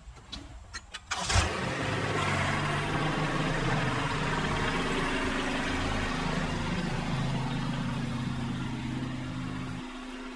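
Kubota B2650 compact tractor's three-cylinder diesel engine starting about a second in, then running steadily as the tractor pulls away, a little quieter near the end.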